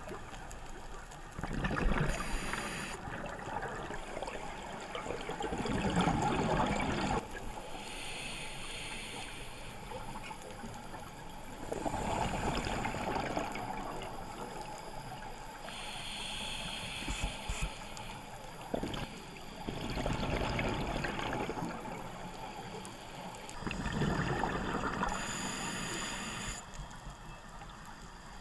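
Scuba breathing through a regulator, heard underwater: loud bursts of exhaled bubbles every several seconds, each lasting two to three seconds, with a softer hiss of inhalation between them.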